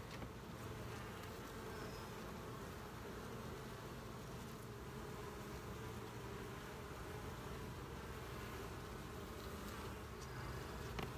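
Honey bees from an open hive buzzing together in a steady low hum.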